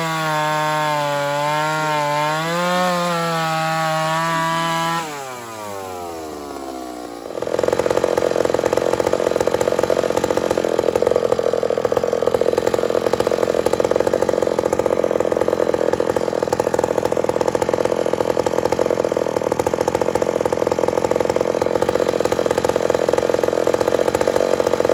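Ported two-stroke Homelite chainsaw with skip-tooth chain running at high revs, its pitch wavering. About five seconds in the revs fall off. It then makes a long, steady, noisy cut through wood.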